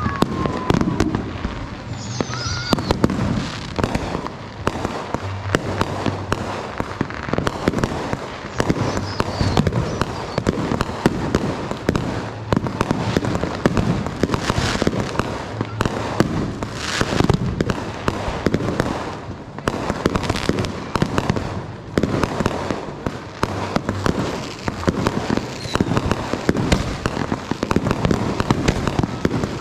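Fireworks and firecrackers going off in a dense, continuous run of rapid bangs and crackling, with a brief falling whistle about two seconds in.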